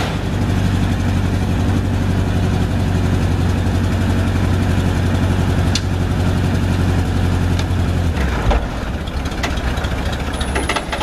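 1959 Chevrolet Viking tow truck's engine idling steadily with the hood up; the even idle note breaks off about eight seconds in, leaving a rougher, quieter rumble.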